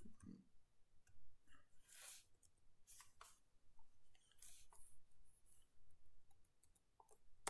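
Faint, scattered clicks of computer keyboard keys being pressed, over near-silent room tone.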